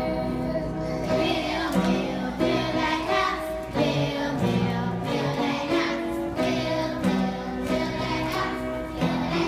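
A group of young children singing a song together, accompanied by piano.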